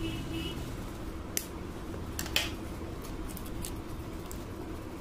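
Steel scissors snipping at the seal of a cardboard retail box. There are two sharp clicks about a second and a half and two and a half seconds in, the second the louder, followed by a few lighter clicks.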